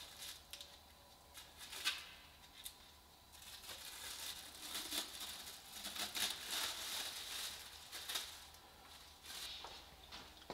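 Thin clear plastic foil being peeled off a car body panel and crumpled by gloved hands. It starts with a few separate faint crackles, turns into denser crinkling and rustling about three seconds in, and dies down near the end.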